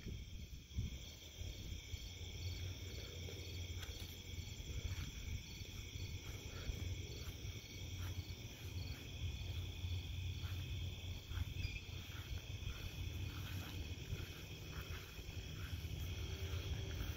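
Night insect chorus: crickets and other insects keep up a steady high trill, with one regular pulsing chirp over it. Beneath it runs a steady low rumble.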